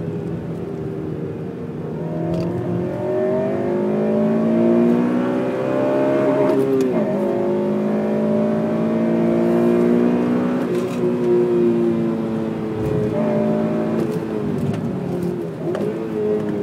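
Honda Civic Type R FN2's 2.0-litre four-cylinder i-VTEC engine revving hard through the gears. It rises steadily in pitch and drops sharply at a shift or lift about seven and again about eleven seconds in, with several shorter dips near the end.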